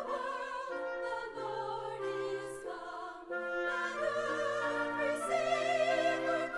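Orchestral holiday music with a wavering, operatic-style singing voice over sustained notes.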